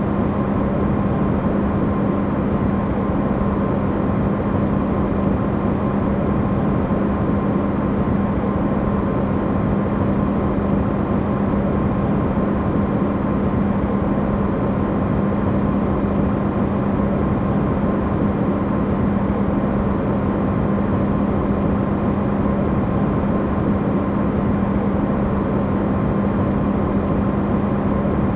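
Electrolux refrigerator running, recorded amplified close up: a steady low hum with an even hiss over it, never changing.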